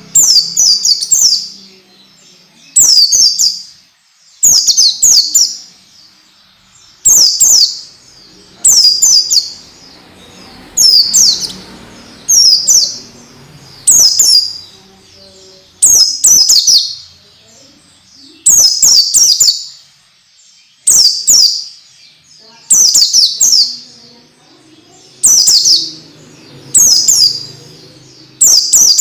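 Pleci (white-eye) song: loud, high-pitched chirping phrases of quick falling notes, repeated about every one and a half to two seconds.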